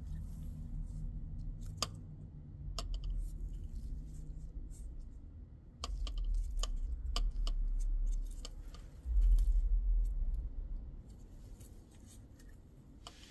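Handling noise from an R-60 missile's infrared seeker assembly being turned in gloved hands: a low rubbing rumble with scattered small sharp clicks and rattles, the rumble loudest about nine seconds in.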